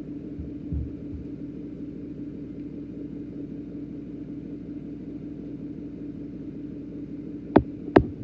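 A steady low machine hum, with a short low thump about a second in and two sharp clicks near the end.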